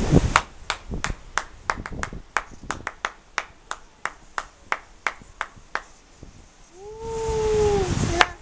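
Hand claps, a rapid run of about three to four sharp claps a second for several seconds. Near the end, a person's long drawn-out call.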